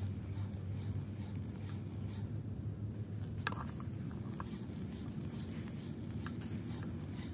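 Ryobi Smurf spinning reel being cranked to retrieve a minnow lure: a faint scratchy ticking with a few sharp clicks, the loudest about three and a half seconds in, over a steady low rumble.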